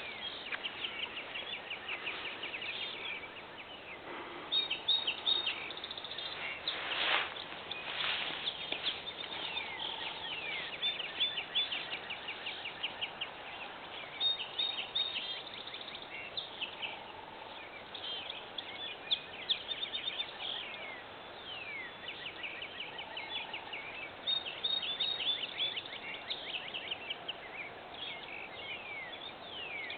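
Several birds chirping and singing in a field, with quick chirps and short whistled notes overlapping throughout.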